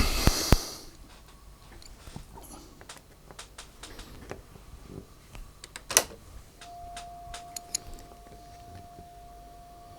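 Clicks and knocks from switches and handling, with a loud rustling clunk at the start and a sharp click about six seconds in. A steady pure test tone then comes in and holds unchanged: a calibration signal for aligning the tape deck's left channel.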